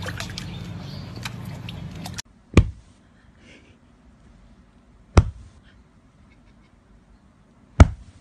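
A steady background hiss with scattered clicks cuts off after about two seconds. Then a sleeping puppy makes three short, sharp hiccups, evenly spaced about two and a half seconds apart.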